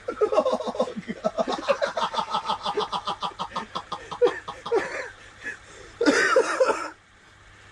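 Several men laughing hard in a long run of rapid 'ha-ha' pulses, followed by a short, loud outburst of voice about six seconds in.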